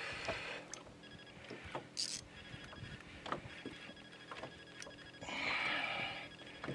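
Scattered clicks and knocks of fishing tackle in a small boat, over a faint steady high tone, with a hiss lasting just over a second that starts about five seconds in.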